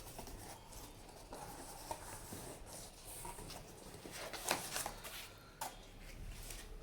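Cardboard box being opened by hand: faint rubbing and scraping of the cardboard, with a few light knocks.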